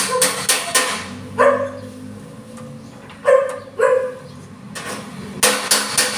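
Rapid, even metal-on-metal strikes, about five a second, from a bumping file being hammered against a dented steel car panel to raise the metal. The strikes stop about a second in and resume near the end. In the pause a dog barks three times.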